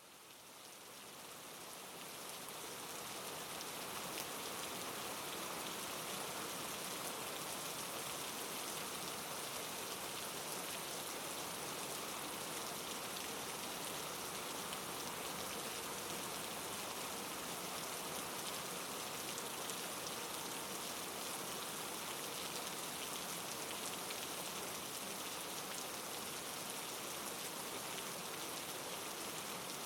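Steady falling-rain ambience, an even wash of rain noise that fades in over the first few seconds and then holds level.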